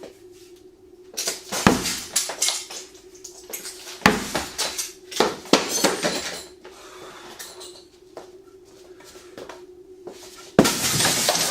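Glass struck hard again and again, most likely the polymer-laminated hurricane impact-resistant window under test: sharp cracking and clinking blows, a few single strikes, then a quick run of hits near the end. A steady low hum runs underneath.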